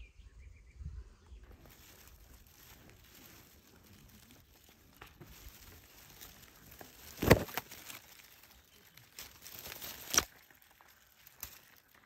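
Leaves of low bilberry shrubs rustling as a hand pushes through them. There are two sharp, louder crackles, about seven and about ten seconds in.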